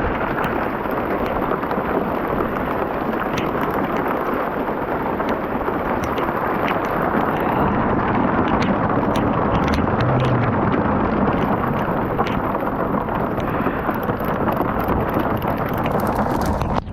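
A heavy storm downpour: dense, steady pelting of precipitation with wind buffeting the microphone, and many sharp individual hits scattered through it.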